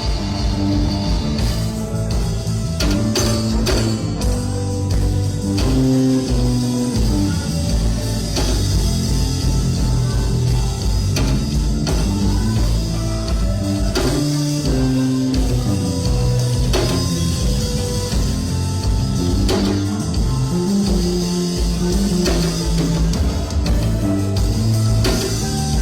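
Instrumental music with bass, guitar and drums keeping a steady beat.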